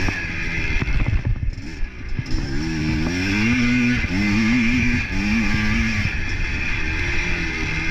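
Motorcycle engine running on the move, its pitch rising and falling as the revs change.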